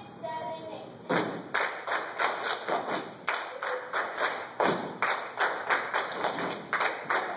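Children's step team stepping: stomps and hand claps in a steady rhythm, about three strikes a second, starting about a second in.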